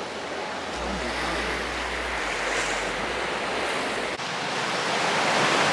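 Ocean surf washing onto a beach, a steady wash that swells louder in the last couple of seconds. Low wind rumble on the microphone for the first few seconds.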